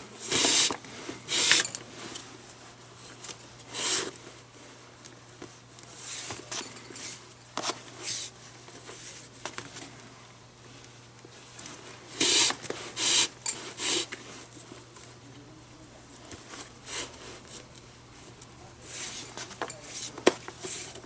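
Leather glove lace being pulled through the lace holes of a Rawlings Pro Preferred glove during relacing: a series of short scraping pulls, several close together near the start and again about twelve to fourteen seconds in.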